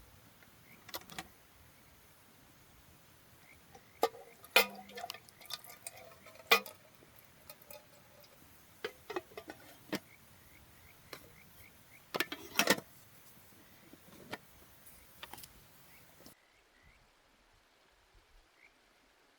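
Metal camp cookware and utensils being handled: a dozen or so irregular sharp clinks and knocks, a few of them ringing briefly. The background cuts off suddenly near the end.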